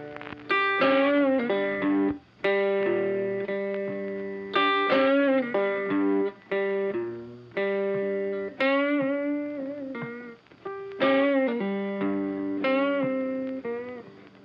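Background music: a guitar melody of plucked notes coming every second or two, several of them bent and wavering in pitch.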